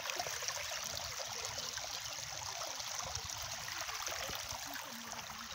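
Muddy runoff water rushing and splashing down a rocky dirt slope in a steady, even flow, a little fainter near the end.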